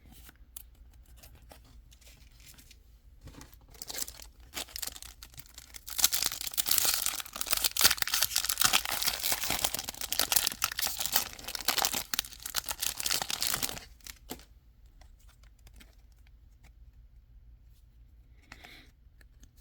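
A foil Pokémon booster pack wrapper being torn open and crinkled: a dense crackling rustle lasting about eight seconds in the middle, with only soft handling before and after.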